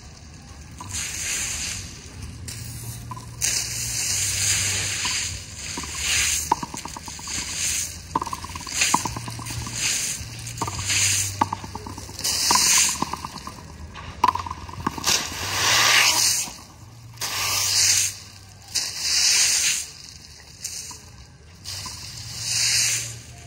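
Dry palm fronds swept over a concrete court: repeated swishing strokes every second or two, with faint knocks between them.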